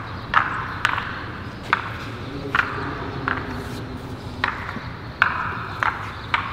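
Spiked epoxy shoes stepping through a wet epoxy floor coating on concrete: a sharp click or slap with each step, about nine steps at an uneven walking pace.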